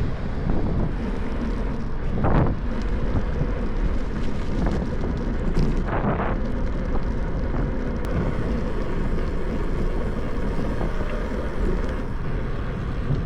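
Wind buffeting the microphone on a moving bicycle, mixed with steady road noise. There are two brief louder swells, about two and six seconds in.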